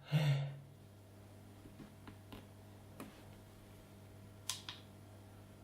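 Faint clicks and taps from handling the gimbal and its wireless remote, the sharpest a quick double click about four and a half seconds in, over a faint steady low hum.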